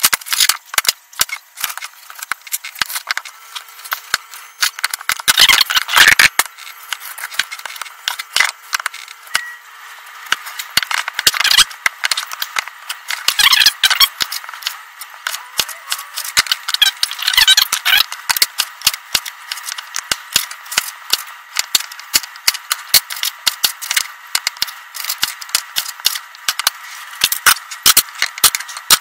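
Chef's knife cutting butternut squash into fry-sized sticks, the blade knocking on the cutting board in irregular clicks that come faster and closer together near the end.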